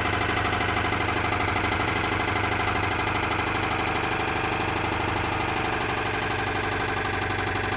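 2008 Toyota Camry engine idling steadily with a rapid, regular knocking.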